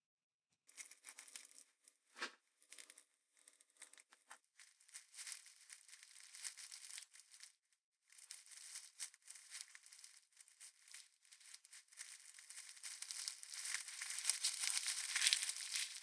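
Waxed paper and foil winding of an old paper-wax capacitor crackling and tearing as it is peeled and unrolled by hand, in irregular bursts with a short break about eight seconds in, growing denser and louder near the end.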